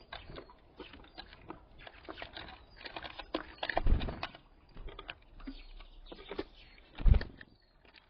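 Small birds at a window feeder: irregular pecking and tapping on the feeder and seeds, with two louder low thumps about four and seven seconds in.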